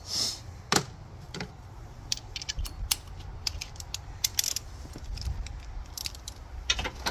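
Metal hand tools clicking and clinking as a socket and extension are fitted onto a ratchet and set on a 12 mm bolt. The clicks come irregularly, with a quicker run near the end.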